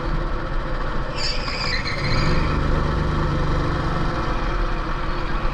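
Rental go-kart's small engine running at low revs, with a brief high-pitched squeal about a second in.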